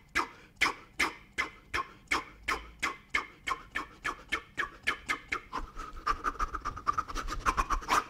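A boxer's sharp exhalations while shadowboxing, one short puff of breath out with every punch. They come about two a second at first and quicken into a rapid flurry over the last couple of seconds. The in-breaths between punches are inaudible.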